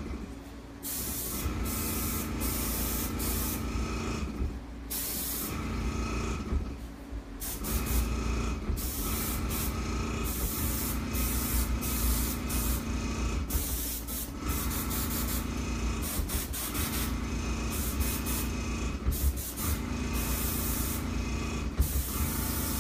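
Airbrush spraying ivory food colouring in long spurts broken by short pauses every few seconds, over a steady low hum.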